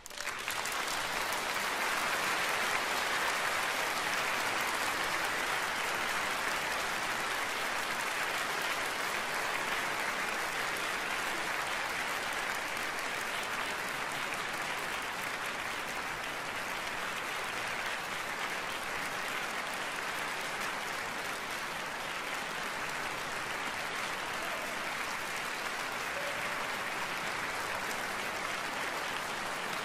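Audience applauding: the clapping starts suddenly out of silence and goes on steadily, easing a little after the first few seconds.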